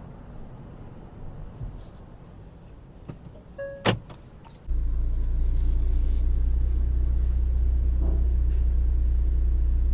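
A short beep and a sharp click about four seconds in, then a steady low mechanical rumble that starts suddenly and runs on without change.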